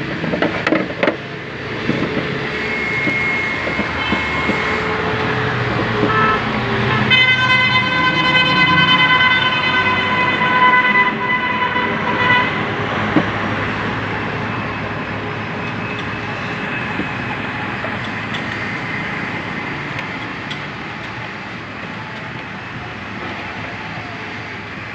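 Steady street traffic noise, with a horn sounding one long held note for about five seconds near the middle.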